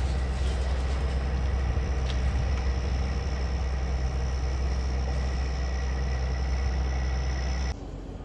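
Heavy demolition machinery's diesel engine running steadily, a strong low hum with a faint high whine over it. It cuts off suddenly near the end.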